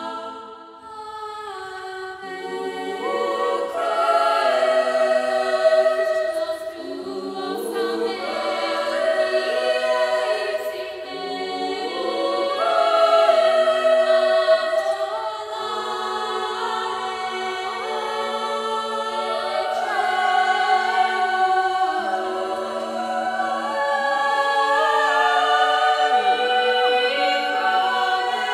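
Upper-voice choir of girls and women singing a cappella in several parts, holding slow chords that shift from note to note. The sound dips briefly about a second in, then swells and stays full.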